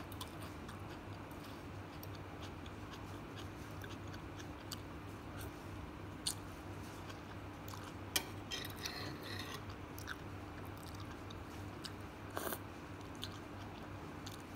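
Quiet eating sounds: chewing, with a few sharp clicks of a metal fork against a ceramic bowl, the loudest a little past halfway. A steady low hum runs underneath.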